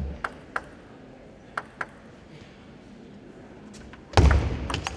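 Table tennis ball clicking sharply, two quick pairs in the first two seconds, then a loud thump with a few more clicks about four seconds in.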